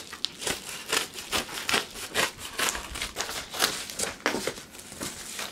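Packaging being handled and rummaged through: irregular crinkling and rustling of plastic and paper mailers, with small clicks and knocks.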